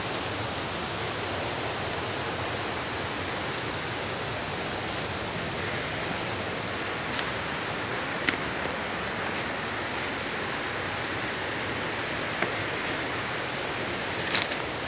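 Steady rushing of creek water, an even hiss at a constant level, with a few brief knocks from climbing footsteps on the rocky slope.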